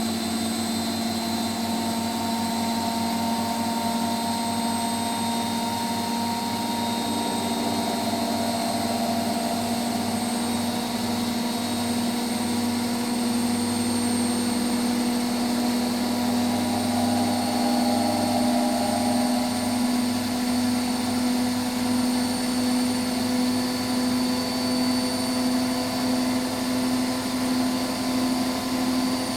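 Hotpoint Extra WMXTF742K washing machine running at speed, a steady motor whine that rises slightly in pitch and grows a little louder, with a faint regular pulsing.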